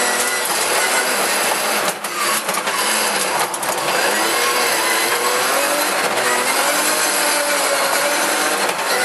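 Rally car engine heard from inside the cockpit, revving hard at speed, its pitch climbing and falling through gear changes, with a short lift off the throttle about two seconds in. A constant wash of road and wind noise runs under it.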